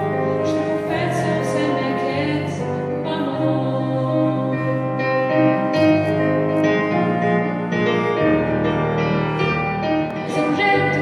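A girl singing a French song solo over an instrumental accompaniment, with long held notes above a slow, steady bass line.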